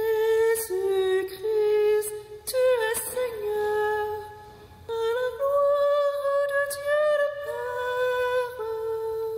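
A woman's solo voice chanting unaccompanied in long held notes that step up and down, a cantor's sung line of the liturgy.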